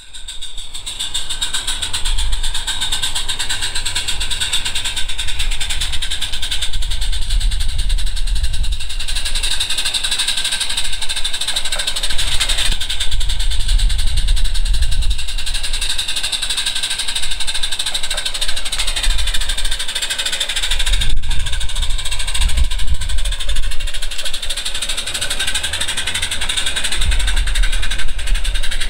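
Gas-fired live-steam garden-railway locomotive running with its goods train: a steady hiss and mechanical running noise, over a low rumble that rises and falls.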